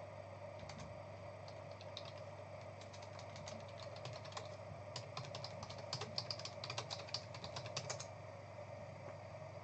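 Typing on a computer keyboard: a run of quick, light key clicks, thickest from about three to eight seconds in, over a steady low hum.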